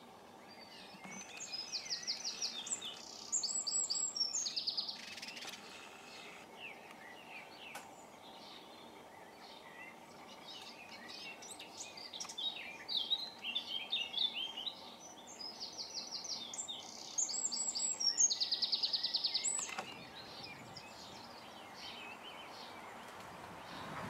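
Songbird song: high, varied warbling phrases with fast, evenly repeated trills. It is loudest in two bursts, a second or so in and again about three-quarters of the way through, with softer song between them.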